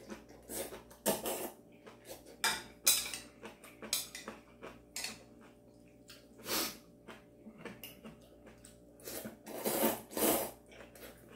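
A person slurping kalguksu noodles and broth from a bowl, with chopsticks clicking against the ceramic bowl. Short clicks come all through, and longer slurps come about six and a half seconds in and twice close together near the end.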